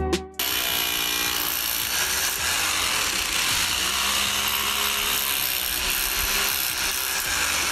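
An electric power tool grinding into cantera stone: a steady, harsh grinding noise that starts abruptly about half a second in and keeps an even level.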